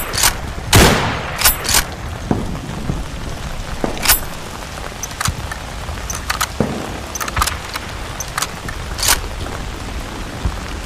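Ross Mk III straight-pull .303 rifle firing one loud shot just under a second in, with a long echoing tail. It is followed by sharp metallic clicks and scattered fainter cracks and pops.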